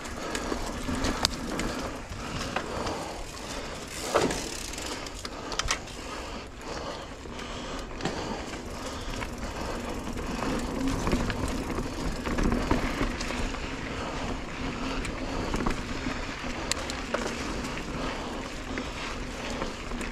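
Mountain bike rolling fast down a dirt singletrack: a steady rushing of tyres on packed dirt, with a couple of sharp clatters from the bike going over bumps in the first few seconds.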